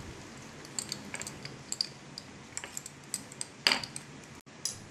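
Light, irregular metallic clinks and ticks of a spoon against a stainless steel bowl while spices go onto the meat, the sharpest clink a little past three and a half seconds in.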